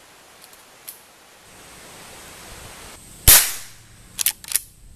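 A single .22 LR shot from a Henry Small Game Carbine lever-action rifle, sharp with a short fading tail. About a second later comes a quick cluster of metallic clicks as the lever is worked to chamber the next round.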